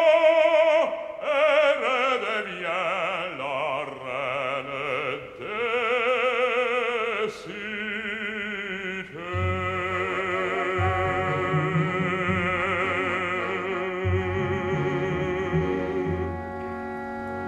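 Operatic bass voice singing with wide vibrato over an orchestra, the phrases falling in pitch. About nine seconds in, the voice stops and the orchestra plays on in held, sustained chords over a low bass.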